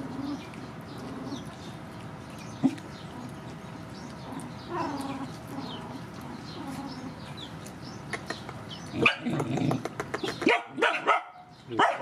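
Dog barking in loud, sharp bursts from about three-quarters of the way in, after a stretch of softer low calls and faint high squeaks.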